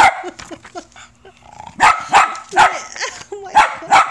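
West Highland White Terrier barking sharply at the toy: one bark at the start, then two quick bursts of about three barks each in the second half.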